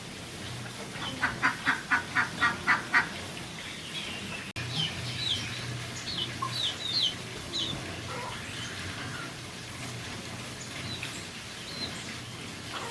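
A duck quacking in a quick run of about eight quacks, some four a second, followed a little later by small birds chirping.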